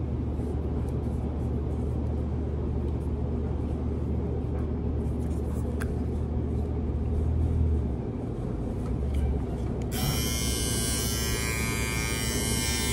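New box-style electric foil shaver switched on about ten seconds in, running with a steady high buzz. Before it, a steady low hum with faint handling clicks.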